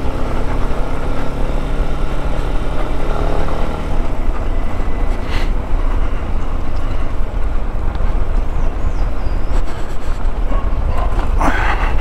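Yamaha XTZ Lander 250's single-cylinder four-stroke engine running while riding at low speed, with wind noise, heard from inside the rider's helmet. A steady engine note lasts for the first few seconds, then gives way to a rumbly mix of engine and wind.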